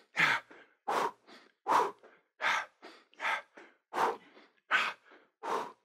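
Hard, rhythmic breathing during a knee-drive cardio exercise, picked up close on a headset microphone. There is a sharp exhale about every three-quarters of a second, about eight in all, each followed by a short, quieter breath.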